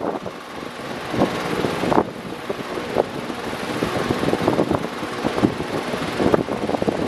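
Electric fan running: a steady rush of air with irregular gusty buffeting.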